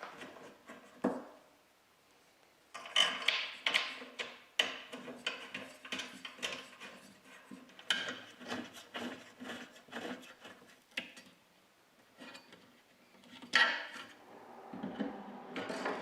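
Parts of a metal-framed baker's rack being handled and fitted together: scattered knocks, clinks and rattles of the shelves and frame pieces, in bursts with short quiet gaps and a louder knock near the end.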